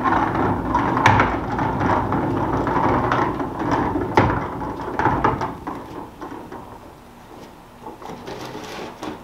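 Portable basketball hoop's plastic base being wheeled across stone pool-deck pavers: the wheels roll with a rumbling rattle and repeated knocks. About six seconds in it dies down to a few light clacks as the hoop is set upright.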